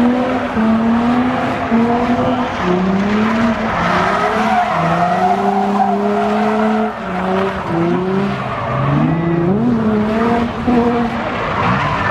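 Car engine held at high revs, its pitch holding for a second or so and then stepping up or down, with a few quick swoops near the end, while the tyres squeal through a burnout.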